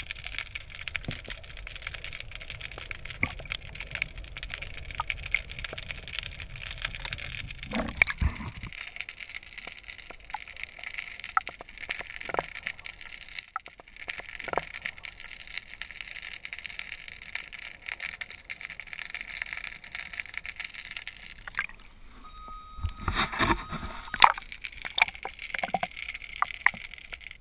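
Muffled water noise heard through an action camera's waterproof housing held underwater beside a canoe: a steady hiss with scattered knocks and clicks, and a low rumble that stops about a third of the way in.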